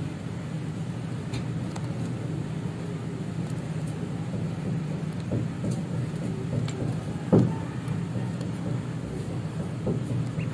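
Steady low hum like a motor or distant traffic, with a few faint short high sounds from the chicks and ducklings, and a single loud thump a little past seven seconds in.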